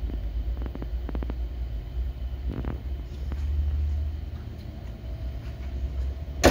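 A steady low rumble, then right at the end the trunk lid of a 1968 Chevrolet Camaro is shut with a single sharp bang.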